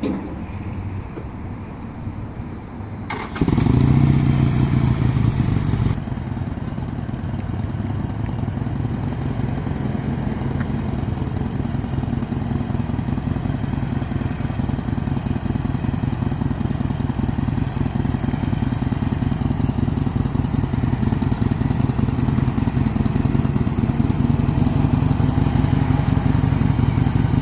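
Harley-Davidson Sportster Iron 883's air-cooled V-twin running as the bike moves off slowly on the clutch. The engine gets louder about three seconds in, then runs on steadily at low speed.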